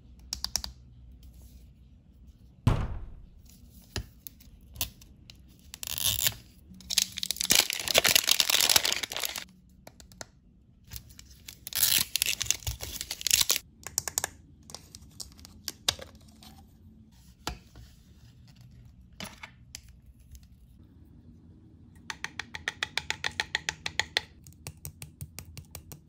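Wrapping on an L.O.L. Surprise toy ball being peeled, torn and crinkled by hand in several bursts, with sharp clicks and taps of hard plastic capsule parts and fingernails. Near the end comes a rapid run of light clicks, about six a second.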